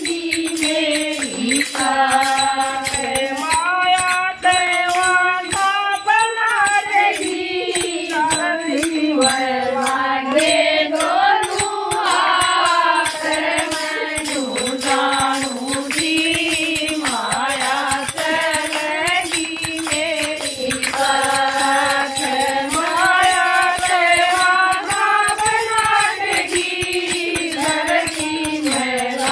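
A group of women singing a Hindu devotional bhajan, accompanied by a hand-held kartal, wooden clappers with small metal jingles, clapped and jingled in time with the song.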